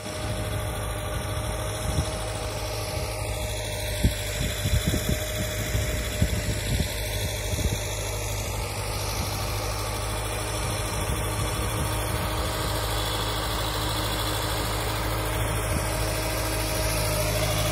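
Farm tractor's diesel engine running steadily as it pulls a tillage implement through loose soil, with a few short knocks in the first half. It grows slightly louder near the end as the tractor comes closer.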